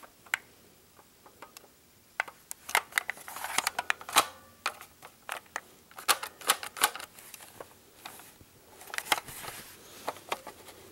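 Adventure Force plastic toy pistol being handled, making irregular sharp clicks and rattles that come in bunches about two, six and nine seconds in.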